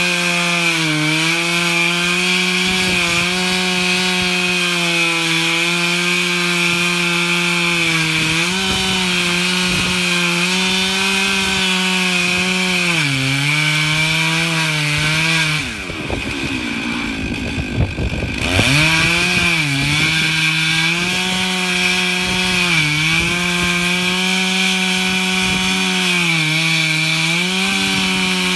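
Stihl MS 661 two-stroke chainsaw on an Alaskan-type chainsaw mill, running at full speed while ripping a pine log lengthwise; its steady high note sags slightly every few seconds under the load of the cut. About sixteen seconds in, the engine note drops away for two or three seconds, then climbs back to full speed.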